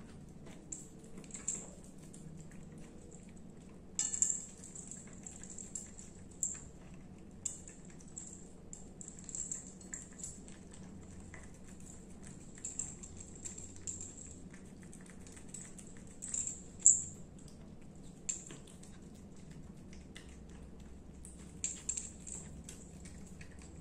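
A cat licking and eating wet canned cat food pâté from a plate: irregular wet licking and lapping sounds with scattered sharper clicks, the loudest about 17 seconds in.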